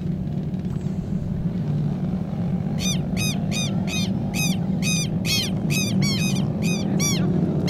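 Racing kart engines running steadily as the pack of karts passes. From about three seconds in, a bird calls over them in a quick series of sharp, arching notes, two or three a second, about a dozen in all.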